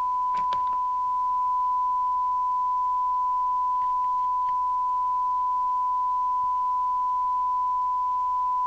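A steady pure test tone of about 1 kHz from the Kernow Beta 2100 CB radio's receiver audio, as it demodulates a 1 kHz-modulated FM test signal during alignment of its detector. A few brief clicks about half a second in, and faint ticks around four seconds.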